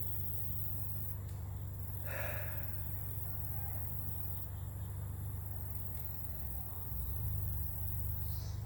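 A person's short, audible breath about two seconds in, over a steady low background hum.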